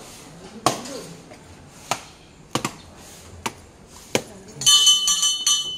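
Coconuts smashed against a stone slab as temple offerings: about five sharp cracks, roughly one a second. Near the end a metal bell rings rapidly for about a second.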